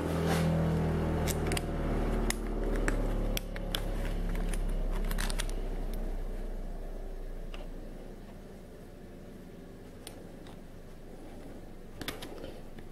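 Steel exhaust flanges handled in leather welding gloves, with scattered small metal clicks and clinks. A low steady machine hum runs underneath and fades out over the first half.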